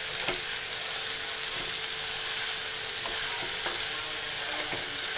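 Diced potatoes and tori gourd sizzling as they fry in spice masala in a pan. A wooden spatula stirring and turning them gives a few light scrapes and knocks against the pan.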